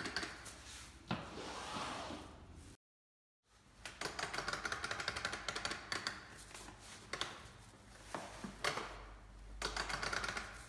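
Folding seat's adjustable backrest hinge ratcheting: runs of rapid clicking as the backrest is swung up and folded down through its click-stop positions, with a brief total dropout about three seconds in.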